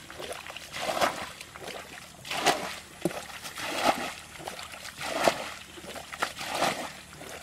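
Muddy ditch water being bailed with a pot: each scoop and throw gives a splash, five in all, about one every second and a half.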